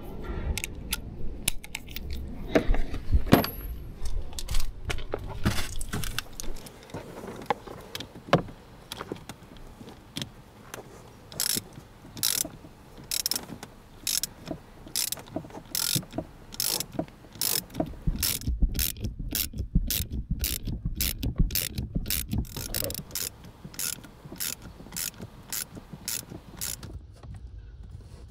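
Hand-tool work: a few knocks and handling thumps, then a long run of sharp ratcheting clicks, about one or two a second.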